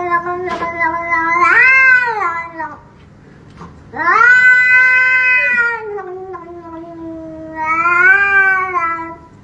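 A grey cat giving long, drawn-out yowling meows: two calls, the second lasting about five seconds, each swelling up in pitch and falling back.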